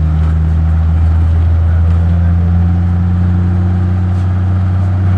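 Steady low engine drone heard from inside a moving vehicle; its pitch shifts slightly about halfway through.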